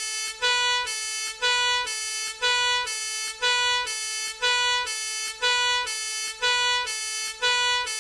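Two-tone hi-lo fire engine siren, switching between a higher and a lower note about twice a second.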